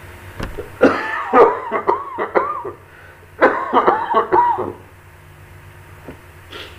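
A man coughing in two bouts of several coughs each, about a second in and again about three and a half seconds in.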